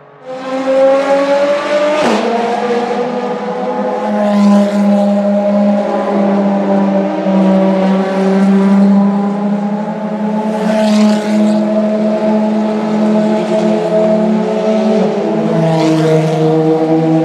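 Several Ferrari FXX K Evo V12 engines running at steady, low pit-lane revs in the rain, their overlapping tones holding a near-constant drone. A hiss from wet tyres on the tarmac swells a few times as cars go by.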